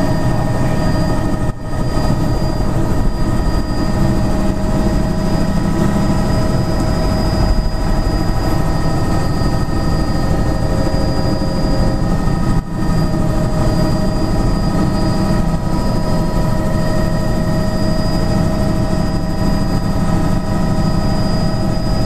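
Tour helicopter's turbine engine and rotor running steadily during takeoff, heard inside the cabin as a loud low drone with a steady high whine over it. The sound cuts out briefly twice.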